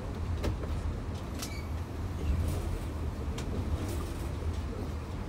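Running noise inside a moving passenger train coach: a steady low rumble from the wheels on the track, with scattered sharp clicks.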